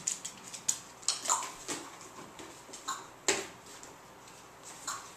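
Scattered clicks and knocks from a beagle searching: claws tapping on a wooden floor and paws knocking against plastic tubs set on chairs. The loudest knock comes about three seconds in.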